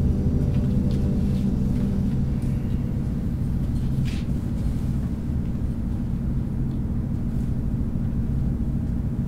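Steady low hum and rumble of room tone, with a few faint ticks.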